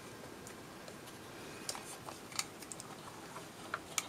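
A handful of small, scattered clicks and taps from the EEW Nano electric spinner's flyer being fitted back into its maidens by hand, its bearings seating into fabric-lined channels; the motor is not running.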